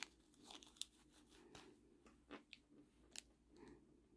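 Near silence with a few faint, scattered clicks of small plastic parts being handled: a Nendoroid figure's legs being pulled off.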